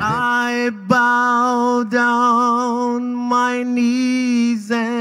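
A man singing a gospel hymn unaccompanied into a microphone, holding long wavering notes on drawn-out vowels, with short breaths about a second in, two seconds in and near the end.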